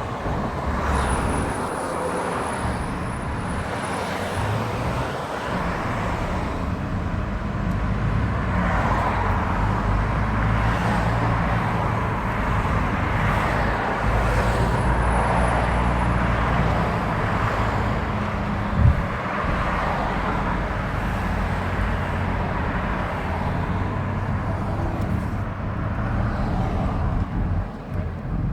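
Mercedes-Benz C-Class running with steady road and engine noise, and a thin high-pitched squeal twice: about a second in for some three seconds, and again about fifteen seconds in for a second and a half. A single short knock about nineteen seconds in.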